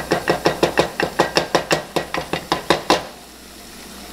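Wooden cutting board rapped repeatedly against the rim of a cooking pot to knock diced onions off into it: a fast, even run of sharp knocks, about six or seven a second, that stops abruptly about three seconds in.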